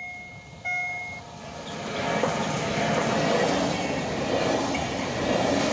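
Container freight train, hauled by an electric locomotive, rolling over a level crossing close by: the rumble and clatter of wheels on rail swell after the first two seconds and stay loud as the flat wagons pass. In the first second a steady single-note warning signal sounds twice.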